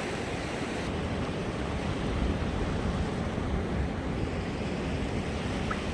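Sea surf washing steadily on the shore, with wind rumbling on the microphone.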